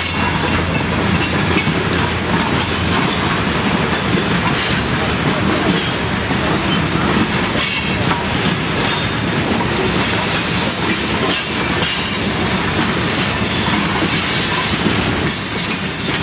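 A freight train's tank cars and covered hopper cars rolling past over a road crossing: a loud, steady rumble of steel wheels on rail that does not let up.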